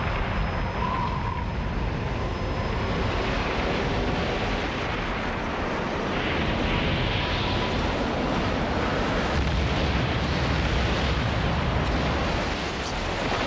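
A huge explosion's blast as a film sound effect: a long, dense roar that grows heavier in the low end past the middle, with a few sharp cracks near the end.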